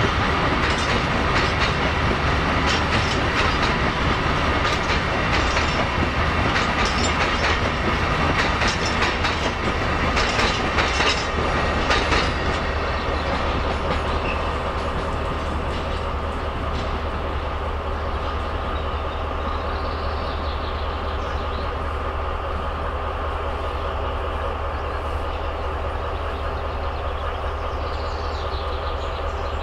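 Freight train of tank wagons rolling away on the track, the wheels clicking over rail joints. The clicking stops about 12 s in, leaving a steadier, slightly quieter rumble as the train moves off.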